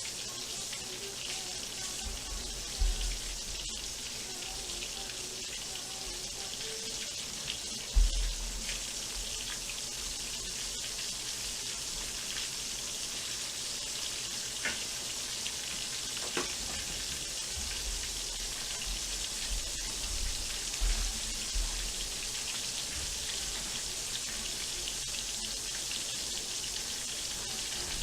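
Whole flour-coated chicken deep-frying in a pot of hot oil: a steady, even sizzle. A few low thumps come near 3 s, 8 s and between 18 and 22 s.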